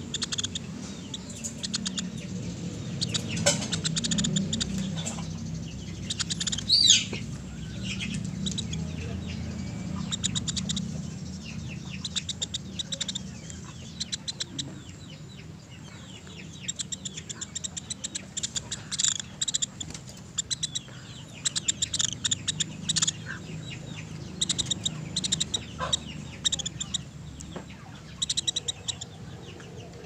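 Woodpecker (pelatuk beras) calling: quick runs of sharp, high, chattering notes, repeated again and again, over a low steady background hum.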